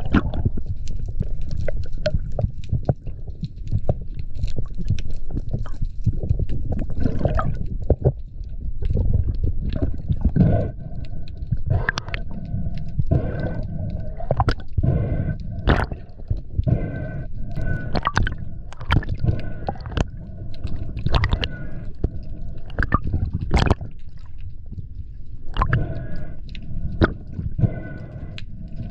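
Underwater sound picked up through a camera housing: a constant low water rumble with many sharp clicks and knocks as a speared sea bass is handled on the spear shaft, and an on-and-off whine from about ten seconds in.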